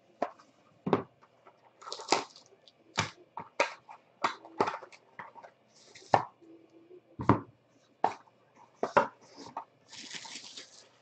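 Cardboard trading-card box packaging handled on a tabletop: a string of sharp knocks and taps as the box sleeve, lid and inner tray are lifted and set down. Brief scraping slides of cardboard come about two, six and ten seconds in.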